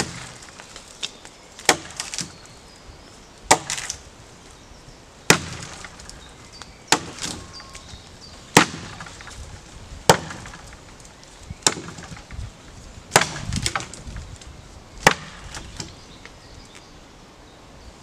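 Small axe chopping into the trunk of a small dead tree, about ten sharp strikes one after another, spaced roughly one and a half to two seconds apart, with light cracking and rustling between blows.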